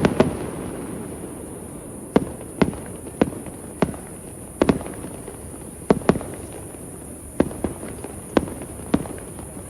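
Fireworks shells bursting overhead: about a dozen sharp bangs at irregular intervals, some coming in quick pairs.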